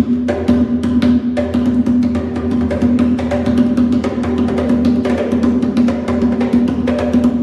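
Drums played in a fast, steady rhythm: dense sharp strikes over a sustained ringing drum tone.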